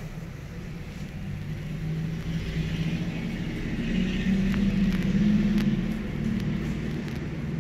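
A vehicle's engine running, a low hum that swells to its loudest about five seconds in and then eases off.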